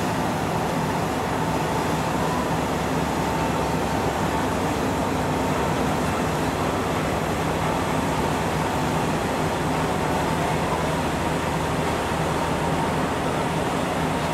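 Steady drone of a car ferry under way: a low engine and machinery hum with a faint higher steady tone, over an even rush of noise.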